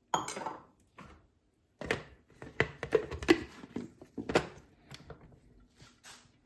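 Kitchenware clinking and knocking as turmeric and black pepper are added to a blender, in a quick run of sharp taps and knocks from about two seconds in, easing off after about four and a half seconds.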